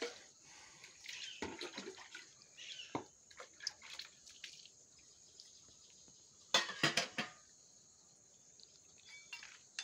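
A cat eating wet food from a bowl: soft, wet chewing and licking sounds, with a louder cluster of clicks about two-thirds of the way through.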